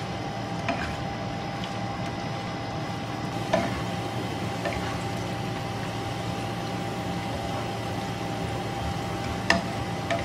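Sliced red onions sizzling steadily in hot oil in a nonstick wok as they fry down toward crispy, stirred with a spatula that knocks against the pan a few times, most sharply about three and a half seconds in and near the end.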